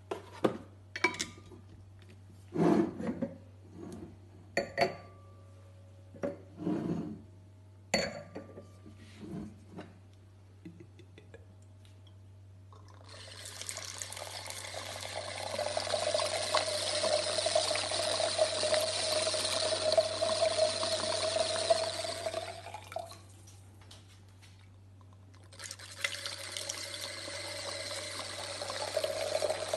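Wine poured from a bottle into a glass: a steady splashing pour lasting about ten seconds, then after a short pause a second pour. Before it, a run of sharp clicks and knocks.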